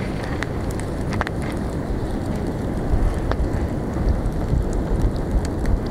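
Wind buffeting the microphone as a low rumble, with a few sharp crackles from a wood campfire burning on ice.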